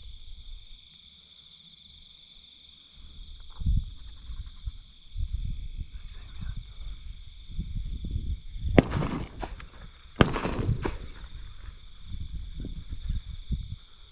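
Two shotgun shots about a second and a half apart, each followed by a short echoing tail.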